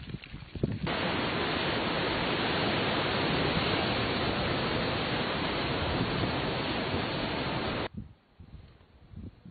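A steady, even rushing noise of surf and wind where lava pours off a sea cliff into the ocean. It starts suddenly about a second in and cuts off near eight seconds. Before and after it there are fainter, uneven low rumbles and thumps.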